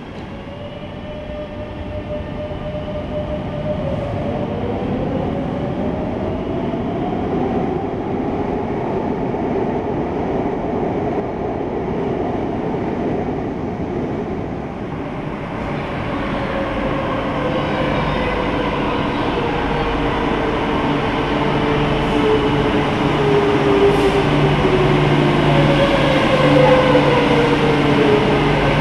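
Madrid Metro electric trains at an underground platform: the traction motor whine rises in pitch as a train pulls away in the first several seconds, and later a long falling whine sounds as a train slows, over a steady low hum that grows louder near the end.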